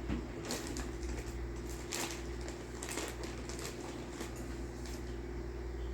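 Plastic model-kit parts trees being handled, giving light irregular clicks and crinkles, over a steady low hum.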